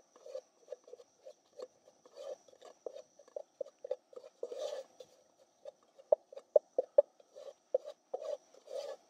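A spatula scraping and stirring a thick roux of flour and spices in a GSI Outdoors camping pot on a gas camp stove: a run of short scrapes, about three a second, with a longer, louder stir about halfway through and another near the end.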